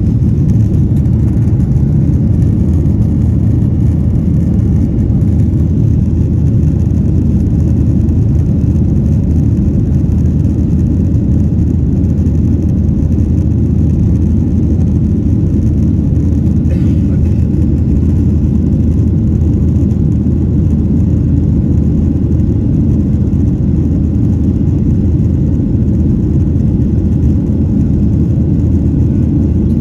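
Steady low roar of a Boeing 737-800's CFM56-7B jet engines and rushing airflow, heard inside the cabin during the climb after takeoff.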